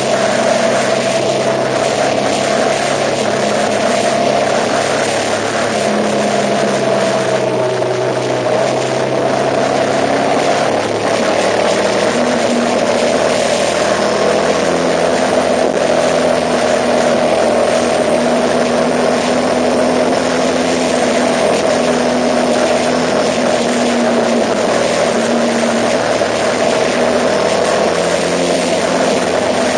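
A vehicle's engine running steadily under way, a continuous drone over a broad rushing noise, with its low tones shifting about twelve seconds in.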